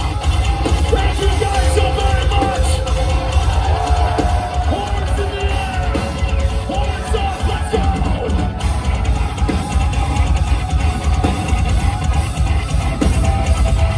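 Progressive metalcore band playing live at full volume: distorted guitars with pitched lead lines over pounding drums and a heavy, booming low end.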